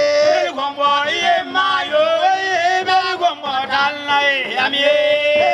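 A voice singing a melody in long, held notes that bend up and down in pitch.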